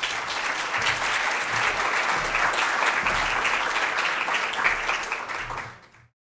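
Audience applauding steadily, fading out and cutting off near the end.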